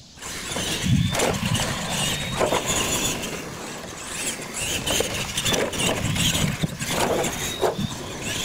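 Two radio-controlled monster trucks launching and racing on dirt, their electric motors and gears whining. The sound starts suddenly and surges unevenly as they run.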